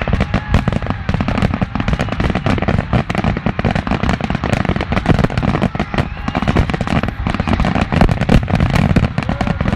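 Fireworks going off in a dense, continuous barrage of sharp bangs and crackling pops, several a second without a break.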